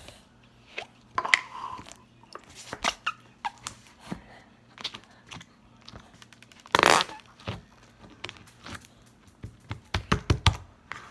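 Slime being squished and stretched by hand: irregular sticky clicks and squelches, with one louder, longer squelch about seven seconds in and a quick run of clicks near the end.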